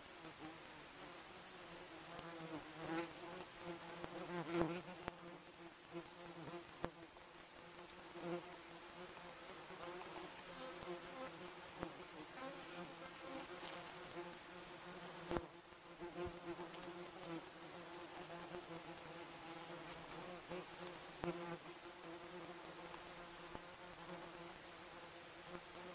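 A swarm of wasps buzzing as they feed: a steady hum, with single wasps swelling louder as they fly close past the microphone, most of all about four and a half seconds in.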